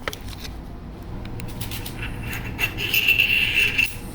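Metal parts clicking and scraping as a spacer and tapered roller bearing are slid onto a greased fork steering stem, with a louder, longer scrape about three seconds in.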